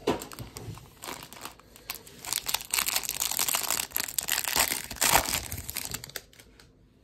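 A Topps baseball card pack's wrapper crinkling as it is handled and torn open, the crackling thickest and loudest from about two to five seconds in, then dying away.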